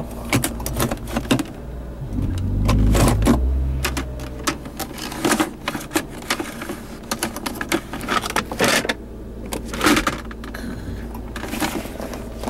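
Rapid clicks and knocks of the interior trim being handled, the automatic gear selector and the centre console armrest lid, over the steady low hum of the 3.2-litre V6 idling. A louder low rumble swells briefly about two seconds in.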